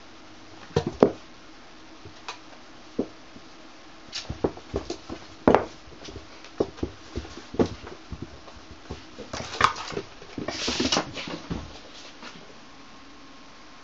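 Two cats play-fighting: irregular thumps and knocks of bodies and paws, with a longer burst of scrabbling about ten seconds in.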